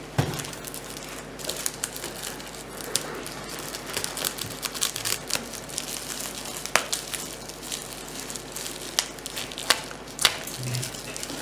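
Clear plastic bag crinkling as it is handled and pulled open by hand, with irregular sharp crackles.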